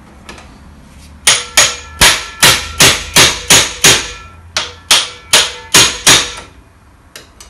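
A hammer striking a manual impact screwdriver to free a tight cross-head screw in an alternator housing: thirteen sharp metallic blows, about three a second, in a run of eight and then, after a short pause, five more. Each blow turns the screw a little by jarring its head loose.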